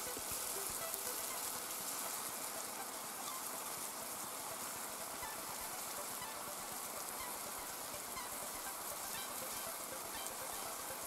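Steady rain falling on a lake and the pines around it, an even hiss and patter with no let-up.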